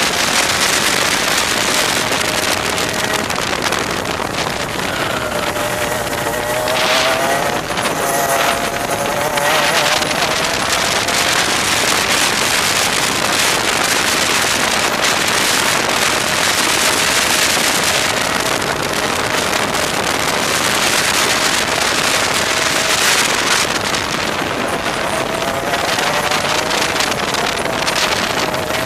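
Onboard sound of a 125cc two-stroke TaG kart engine at racing speed, its pitch dropping into each corner and climbing again on the exits. A heavy rush of wind and intake noise runs under it.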